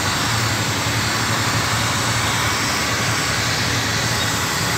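Stanley electric heat gun running: a steady rush of blown air with a low hum, used to warm and soften a printed vinyl decal as it is pressed onto the scooter's fairing.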